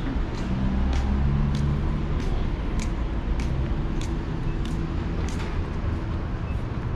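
Footsteps at a walking pace, about one step every 0.6 seconds, over a steady low rumble.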